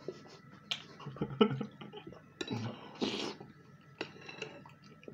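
Close-up eating sounds of pelmeni in broth: a series of sharp, wet clicks from chewing and lip smacking, with a spoon knocking in the china bowl.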